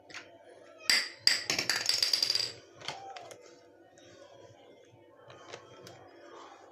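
Two sharp clicks, then about a second of rapid clattering clicks, from handling a newly unboxed dispenser; a few lighter ticks follow.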